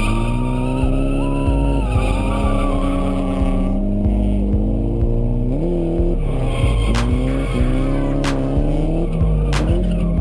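Nissan S13 Silvia's turbocharged engine revving up and down while drifting, its note rising and falling repeatedly, with tires skidding and squealing. Several sharp clicks come in the second half.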